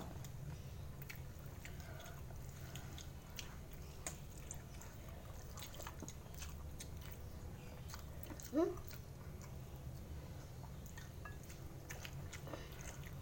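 A person chewing food: faint, scattered wet mouth clicks and smacks over a steady low hum, with a brief voiced sound about eight and a half seconds in.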